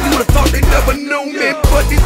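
Hip hop music with a heavy beat; the bass cuts out for about half a second about a second in, then the beat comes back.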